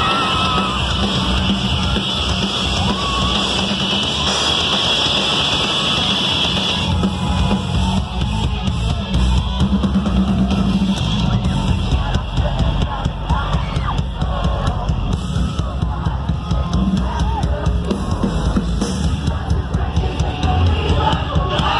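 Live post-hardcore rock band playing loud, with drum kit and electric guitar, heard from inside the concert crowd.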